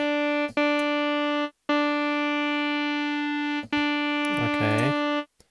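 Arturia SQ80 V software synth lead patch playing the same held note about four times, each lasting one to two seconds with short gaps between. The tone stays steady throughout, since the envelope's new attack is not yet assigned to the filter cutoff.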